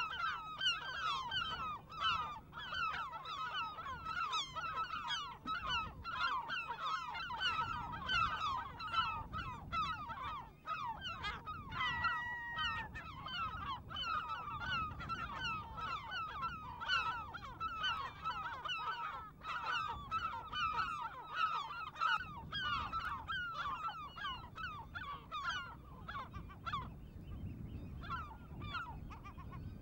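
Dense chorus of a waterbird breeding colony: many short, harsh calls overlapping without a break. About twelve seconds in, one longer call holds an even pitch for about a second.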